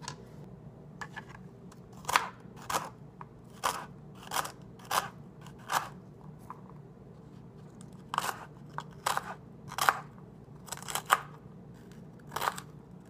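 Kitchen knife dicing a celery stalk on a cutting board: a crisp crunch with each cut, about fifteen cuts at uneven spacing with a pause of about two seconds around the middle.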